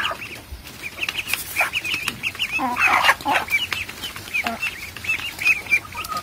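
A brood of ducklings peeping in a dense chorus of short, high calls, with a mother hen clucking among them. The calls are loudest and fullest about three seconds in.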